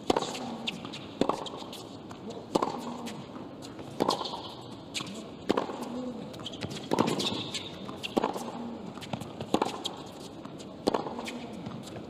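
A tennis ball struck back and forth by racket strings in a hard-court baseline rally, a sharp pop about every second and a half, about nine hits in all.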